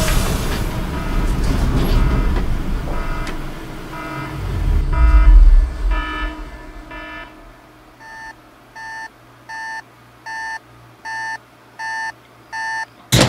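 Electronic beeping over a low mechanical rumble: faint beeps about twice a second while the rumble swells about five seconds in and dies away, then seven longer, clearer beeps evenly spaced, and a sudden sharp hit just before the end.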